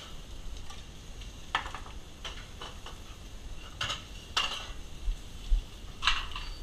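Metal pans and utensils clattering: several sharp clinks and knocks with a little ringing, and a couple of dull thumps about five seconds in.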